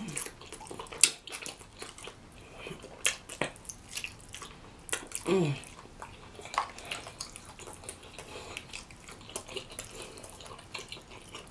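Wet, sloppy chewing and lip-smacking on rotisserie chicken skin dipped in cheese sauce: irregular sharp smacks and clicks, with a short falling hum about five seconds in.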